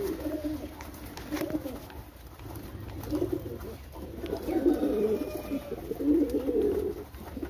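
Fancy pigeons cooing, a run of low overlapping warbling coos from several birds, over a low steady hum.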